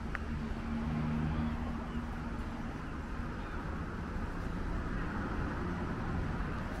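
City street traffic noise, with a motor vehicle's low engine hum that swells about a second in and then fades back into the steady traffic.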